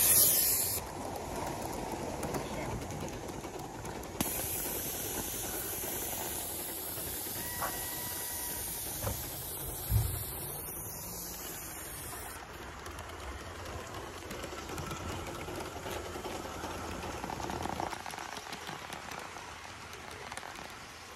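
Gauge 1 live steam model locomotives running: a steady hiss of steam with the running noise of wheels on the track, loudest at the start as an engine passes close. A few light knocks, one louder about ten seconds in.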